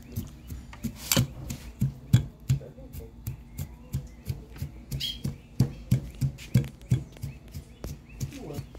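Fried peanuts being pounded with a pestle in a stone mortar to crush them for peanut sambal: steady knocks, about two to three a second.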